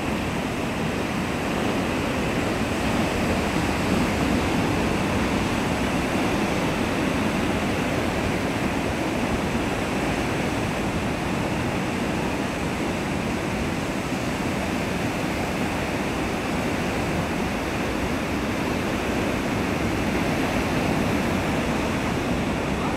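Heavy surf breaking and washing in, a steady, unbroken rush of wave noise.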